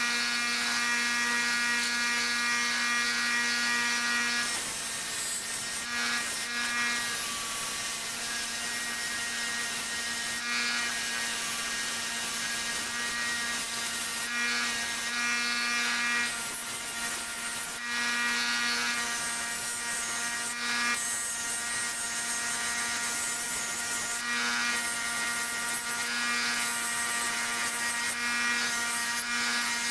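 Bench grinder motor running with a steady hum while a steel hedge shear blade is pressed against the spinning wheel, giving a grinding noise that swells and drops as the blade is worked back and forth in repeated passes.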